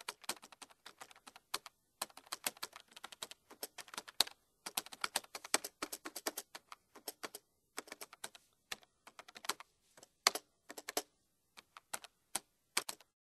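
Typing: quick, irregular runs of sharp key clicks broken by short pauses, stopping just before the end.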